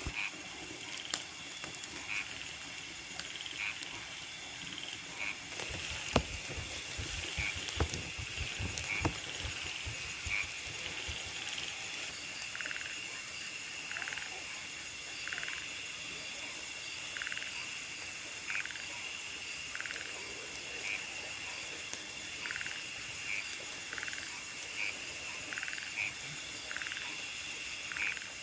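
Night chorus of rice-field insects, a steady high ringing, with a frog giving short calls about once a second through the second half. In the first ten seconds there are several sharp clicks and knocks of something being handled.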